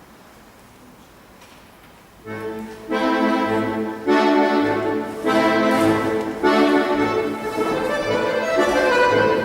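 After about two seconds of room quiet, accordion music begins: sustained chords played in phrases over low bass notes. It is accompaniment for a folk-dance barre exercise.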